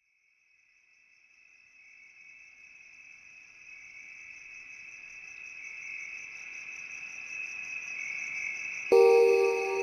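Crickets chirping: a steady high trill that fades in slowly from silence and keeps getting louder. Music cuts in near the end.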